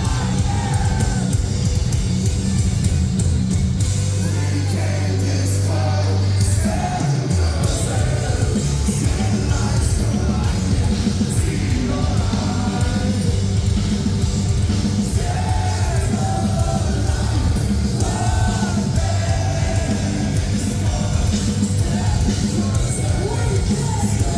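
Live metalcore band playing loud and full, heavy distorted guitars, bass and drums, with a vocalist singing and screaming over it, heard through a concert hall's reverberant sound system.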